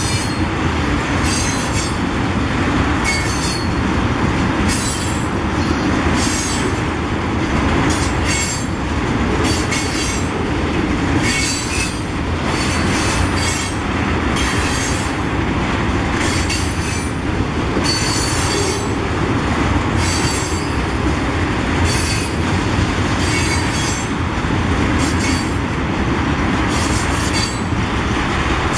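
Freight train of tank cars rolling steadily past, a continuous rumble of wheels on rail with short high-pitched wheel squeals every second or so.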